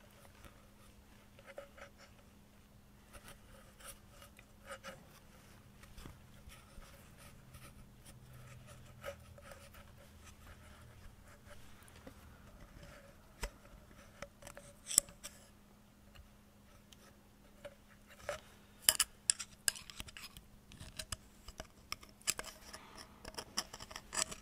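Faint clicks, taps and scrapes of hand work in the shaft bore of a cast-iron hydraulic gear pump housing as O-rings are seated and a metal pick is worked in the bore. The clicks come sparsely at first and grow denser and louder over the last third. A low steady hum runs underneath.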